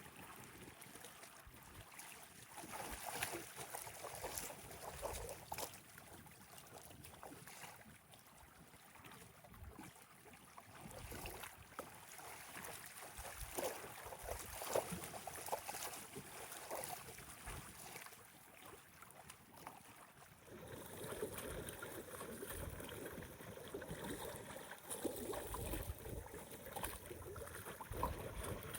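Wind-driven waves lapping and splashing at a lake shore in strong wind, with gusts buffeting the microphone. The sound swells and fades irregularly and grows fuller about two-thirds of the way through.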